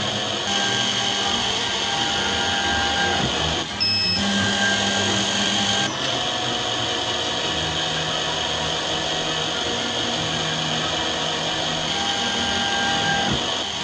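Lens drilling machine's drill motor running steadily as it drills holes in eyeglass lenses, with a brief dip and a short high beep about four seconds in.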